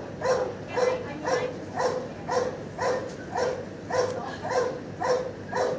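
A dog barking over and over in a steady, even rhythm of about two barks a second.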